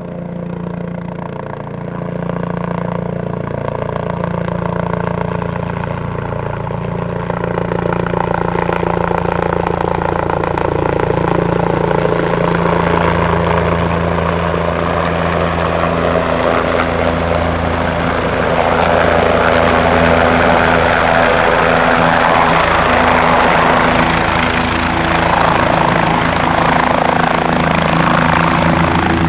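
Bell 427 twin-turbine helicopter descending to land, its rotor and engine noise growing steadily louder as it comes down into a low hover. A high thin turbine whine comes in about halfway.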